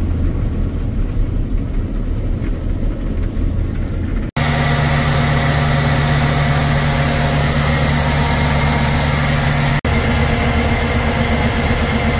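Engines running steadily with no speech: first the low drone of a combine harvester heard from its cab, then, after a sudden cut about four seconds in, a louder engine with a steady whine. There is another abrupt cut near the end.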